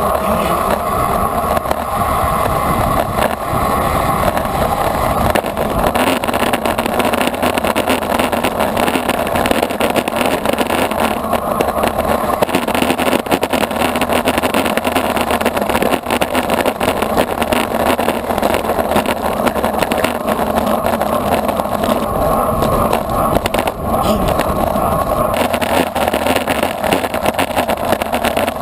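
Steady rush of wind over the microphone of a camera on a racing bicycle at speed, mixed with the hum of road-bike tyres rolling over asphalt and brick-paved street.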